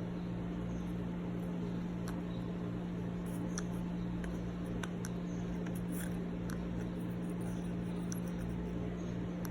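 Steady low hum with faint, scattered ticks and clicks over it.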